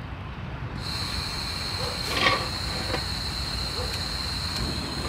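Gas stove burner turned on about a second in: gas hissing steadily with a high whistle on top.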